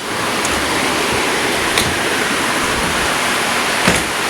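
Steady rain falling, heard as a constant hiss, with a couple of faint ticks.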